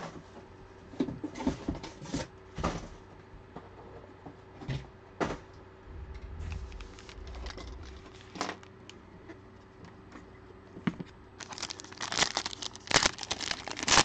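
Scattered clicks and rustles of a cardboard trading-card box being handled and opened, then a dense crinkling and tearing of a foil card-pack wrapper being pulled open over the last couple of seconds.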